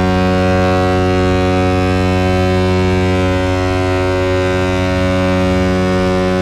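San Jose Sharks' NHL goal horn, a deep air horn with many overtones, blowing one long, steady, unbroken blast. It is heard dry, without arena reverb.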